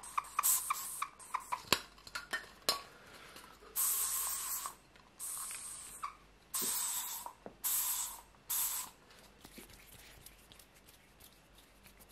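Aerosol hairspray sprayed in about five short hissing bursts, each under a second long, starting about four seconds in. Before them come a run of quick, light clicks.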